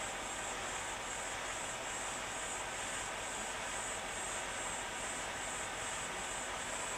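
Steady rushing outdoor noise with an insect's high, thin chirping pulsing evenly about three times a second.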